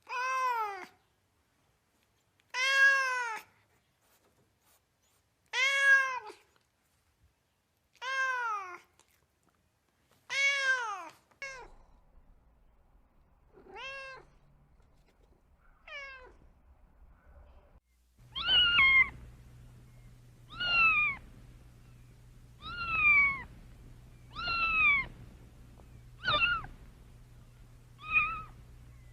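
Cats meowing repeatedly. First come five drawn-out meows, one every two to three seconds. About two-thirds in, a different cat takes over with higher-pitched meows about every two seconds over a low steady hum.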